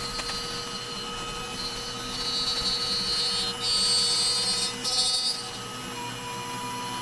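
A CNC router milling a sign into a wood panel: the trim router's spindle runs with a steady whine. A higher, louder whine from the machine's motion swells and fades several times as the cutter moves through the carve.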